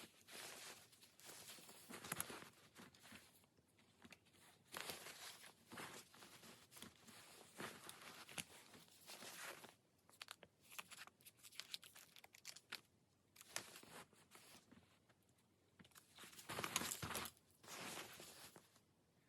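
Paper and sticker sheets rustling and crinkling as they are handled, in short irregular bursts with small clicks between them. The loudest burst comes near the end.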